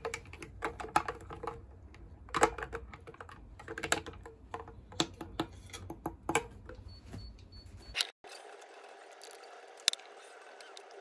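Irregular light clicks and taps, some with a short ring, for about eight seconds. Then, after an abrupt cut, a steady hum with a couple of faint clicks.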